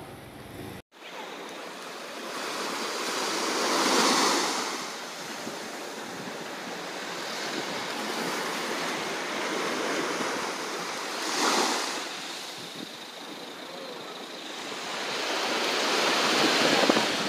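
Sea waves washing onto the shore: a steady surf hiss that swells three times into louder surges, the last and longest near the end.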